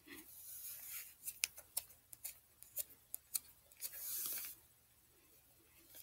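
Handling noise from slime-making tools and supplies. About a dozen sharp little clicks and taps come over a couple of seconds, then a brief, louder rustle of movement close to the microphone about four seconds in.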